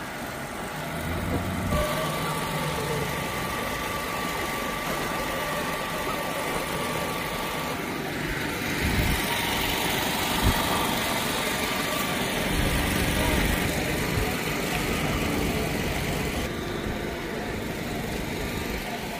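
A steady engine-like hum and low rumble with a faint, even whine in it. It changes character slightly about 2, 8 and 16 seconds in.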